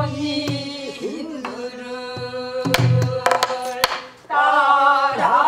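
Pansori singing in long held, wavering notes, with a new phrase starting loudly near the end, accompanied on a buk barrel drum: a few low hand thumps on the drumhead and sharp stick clicks on the drum's wooden shell.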